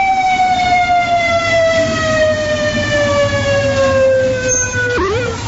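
Siren with one long tone falling slowly in pitch, then a brief up-and-down yelp about five seconds in.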